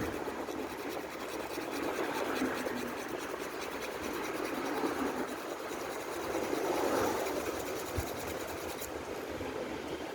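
Small battery-operated toy mechanism running, a small electric motor and gear train giving a rapid, even ticking over a steady whirr, which stops abruptly about nine seconds in.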